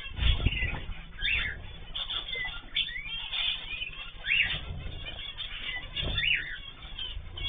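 Cage birds chirping: short separate calls every second or two, over low rustling and a few soft thumps.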